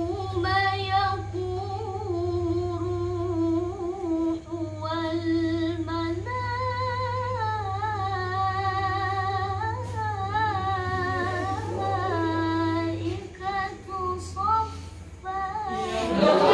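A solo female voice recites a Quran verse in melodic tilawah style in maqam Nahawand, with long held notes that waver and turn in ornaments and short pauses for breath. A steady low hum sits underneath, and the group of students comes in together right at the end.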